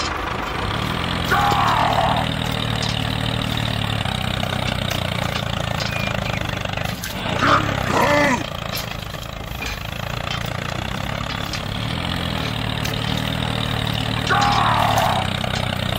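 Tractor engine running steadily, with short gliding squeals about a second and a half in, around the middle, and near the end.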